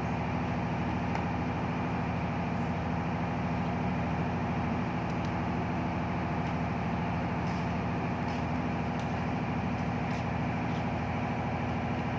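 A steady mechanical drone with a low pitched hum, unchanged throughout, and a few faint light clicks in the second half.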